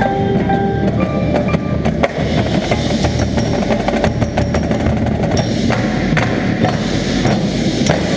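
Indoor percussion ensemble playing. A few pitched xylophone or glockenspiel notes open the passage, then a run of sharp, dry percussion strikes over a steady low sustained backing.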